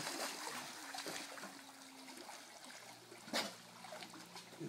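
Pool water splashing and lapping as a dog and swimmers paddle through it, with one sharp splash about three and a half seconds in.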